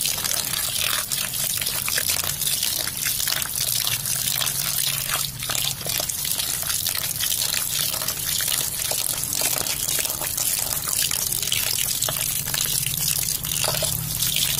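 A stream of water pouring and splashing onto kalai (black gram) dal in a cloth-lined basket, with a hand rubbing and swishing the dal through the water as it is washed. A low steady hum runs underneath.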